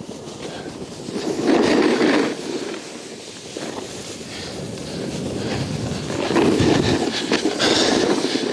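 Snowboard sliding and scraping across snow, growing louder twice as the edge digs in on a turn, with wind rushing over the microphone.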